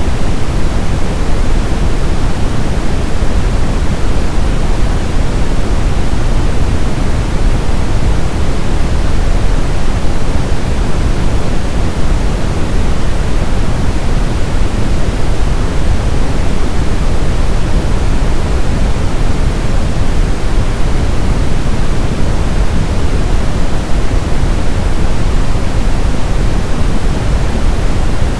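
Brown noise: a steady, deep rushing hiss, strongest in the low end and fading toward the highs, with no changes.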